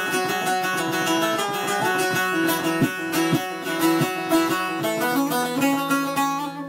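Instrumental break of a folk song: a plucked string instrument playing a quick run of notes over a steady low drone.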